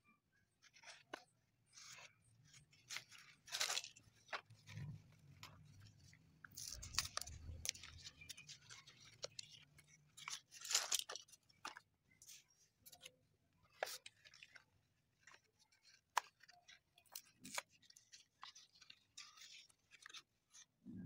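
Paper packet of slate pencils being handled and opened: irregular crinkling and rustling of the paper, with light clicks of the slate pencils knocking together.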